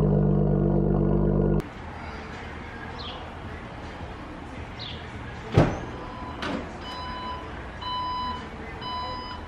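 A car engine idling with a low steady rumble, which stops abruptly about a second and a half in. Later, an SUV's tailgate releases with a sharp thump and then gives a repeating warning beep, about one a second, as it opens.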